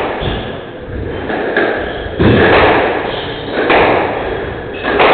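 Squash rally: the ball struck by rackets and thudding against the court walls, several hits roughly a second apart, echoing in a large hall.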